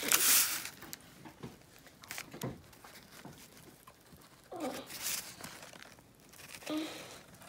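Paper wrapper of a fast-food chicken sandwich rustling and crinkling as the sandwich is handled, with a short loud rustle at the start and softer rustles and taps after.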